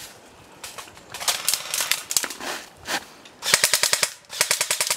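Airsoft gun firing two rapid full-auto bursts in the last second and a half, each about half a second long, at roughly fifteen shots a second.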